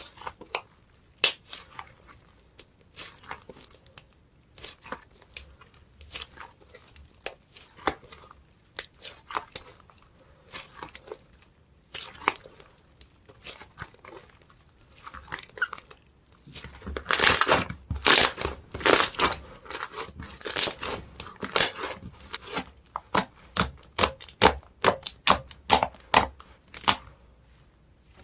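Tacky slime being pressed and stretched by hand: a run of sticky clicks and crackles, getting louder and denser about two-thirds of the way through.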